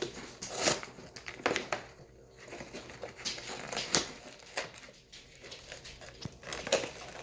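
Toy packaging being handled and opened, crinkling and rustling in irregular bursts of sharp crackles.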